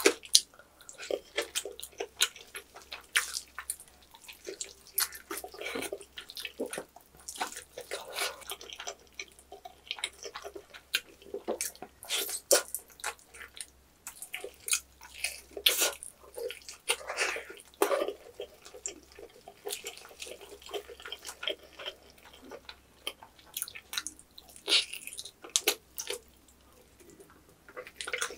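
Wet chewing, sucking and smacking as soft, sticky meat and skin are gnawed off a roasted pork knuckle (Schweinshaxe) bone: a dense, uneven run of short clicky mouth sounds.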